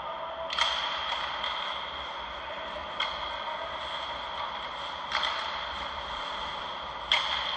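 Ice hockey play heard across an indoor rink: sharp knocks of sticks and puck on ice and boards about every two seconds, each ringing in the arena's echo, over a steady high hum.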